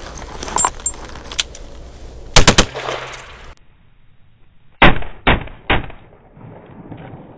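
Tuned Single Action Army revolver in .45 Colt fired three times in a fraction of a second, a triple shot with live 200-grain lead loads, about two and a half seconds in. The three shots come again about five seconds in, spread out over a second and duller.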